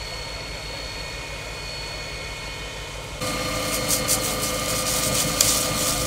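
Fire truck's engine and water pump running with a steady drone. About three seconds in it becomes louder and is joined by the hiss of a hose spraying water onto smouldering ground.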